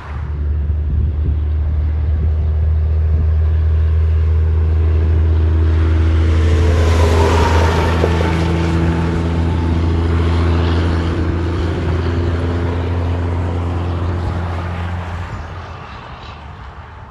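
Semi truck with a diesel engine passing at highway speed: a steady low engine drone with a rush of tyre and wind noise that builds to its loudest about seven to eight seconds in, then fades as the truck pulls away.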